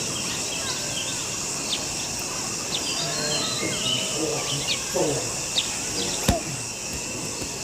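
Many short, scattered bird chirps over a steady, high insect drone, with one sharp click about six seconds in.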